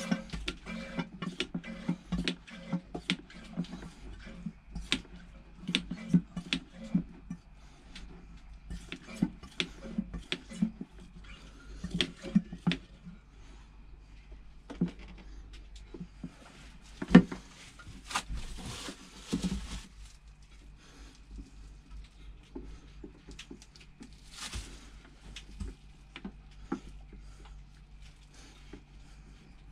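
Hand-operated oil extraction pump being worked to suck the old oil out of a Bukh DV10 marine diesel's sump: a run of irregular clicks and knocks from the pump strokes, with a louder rushing stretch about seventeen to twenty seconds in.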